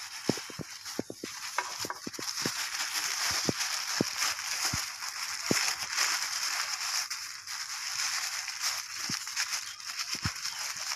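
Thin polythene bag crinkling and rustling in the hands as it is pulled over a potted cutting and bunched around the pot, with many small crackles.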